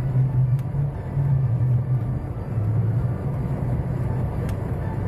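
Car running on a snowy road, heard from inside the cabin: a steady low engine and road rumble whose hum shifts slightly in pitch, with two faint clicks, one about half a second in and one near the end.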